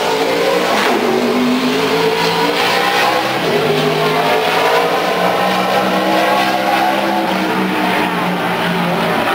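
NASCAR stock car's V8 engine at speed on a qualifying lap around the oval, a loud steady engine note whose pitch rises and falls gradually as the car goes through the turns and down the straights.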